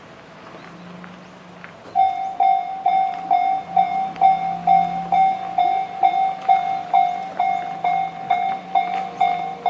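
Japanese level-crossing warning bell, electronic "Tobu sound C", switching on about two seconds in after low background noise and ringing about twice a second. It is the warning that a train is approaching the crossing.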